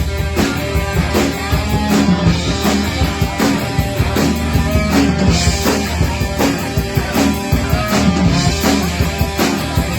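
Rock cover band playing live with no vocals: drum kit keeping a steady beat under electric guitar and bass.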